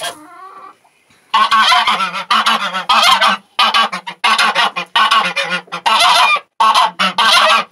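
Domestic white geese honking loudly in a rapid series of short, harsh calls, about two a second, starting a little over a second in.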